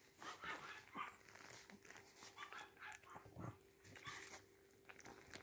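Faint, soft squeaks and snuffles from a Pomeranian mother and her two-week-old puppies as the puppies settle in to suckle, over a faint steady hum.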